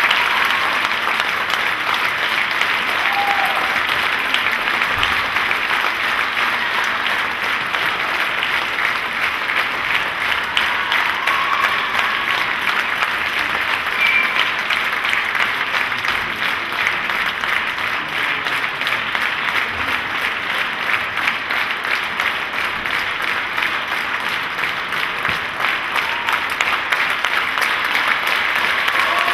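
Theatre audience applauding steadily at a ballet curtain call, dense clapping with a few brief calls standing out above it.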